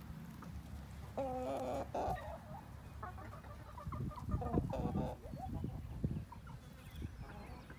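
Chickens clucking in short pitched calls, one run about a second in and more through the middle, over a low rumble.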